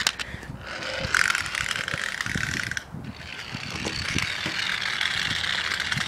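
Small toy car's gearing whirring with fast clicking for about two seconds, then after a short break a steadier whirr as the car runs by itself across concrete paving.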